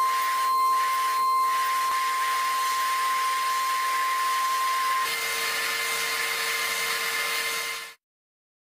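CNC milling machine spindle running at high speed with a steady whine over the hiss of a small end mill cutting aluminium. The main whine drops out about five seconds in, and the sound cuts off suddenly near the end.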